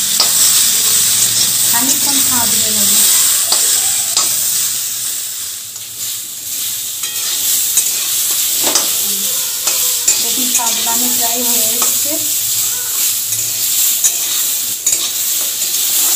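Pieces of hog plum (amra) sizzling in hot oil in an aluminium kadai while a steel spatula stirs and tosses them, scraping and now and then knocking against the pan.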